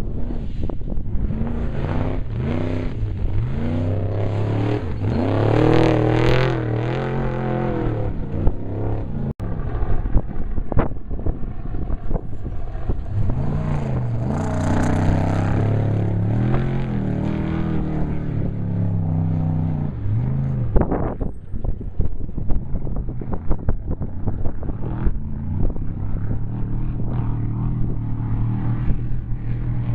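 Off-road desert race vehicles going past at speed, their engines revving with pitch sweeping up and down, loudest about six and fifteen seconds in. Wind buffets the microphone throughout.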